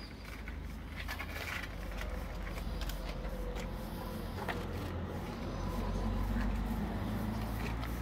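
A small hand brush scratches and taps as sand is swept off brass Stolperstein plaques set in the pavement. Underneath is a low steady rumble that swells about six seconds in.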